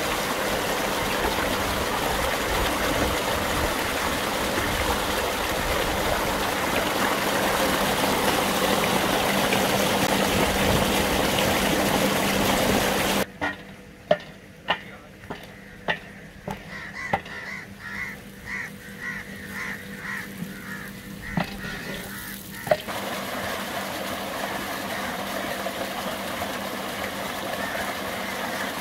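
Water gushing steadily from a pipe outlet into a concrete tank. For about nine seconds in the middle this gives way to a quieter stretch of sharp knocks, a wooden paddle striking a large metal cooking pot as onions are stirred, with a faint repeated chirping; then the gushing water returns.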